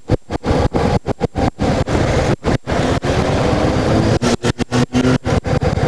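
Motorcycle engine running at road speed under heavy wind noise on the microphone. The sound cuts out in many brief gaps, several times a second in places.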